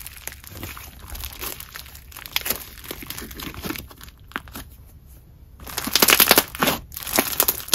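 Thick Play-Doh clay slime with beads mixed in being stretched, folded and squeezed by hand, giving a dense crackling and crunching with small pops. It goes quieter about four seconds in, then crackles louder near the end as the slime is pressed down.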